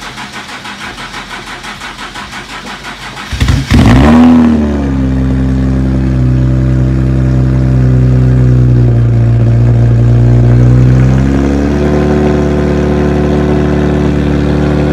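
Nissan 370Z's 3.7-litre V6 cranking on the starter with a rhythmic churn, about five pulses a second, for some three and a half seconds. It then catches with a loud flare of revs and settles into a steady idle.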